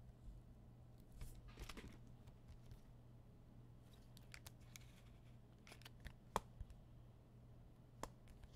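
Near silence over a low steady hum, broken by faint clicks and short rustles of trading cards and foil packs being handled, with one sharper click a little after the middle.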